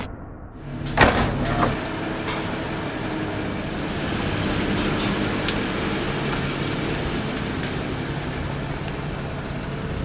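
A vehicle door shuts with a sharp thud about a second in, then a car runs steadily with a low, even hum.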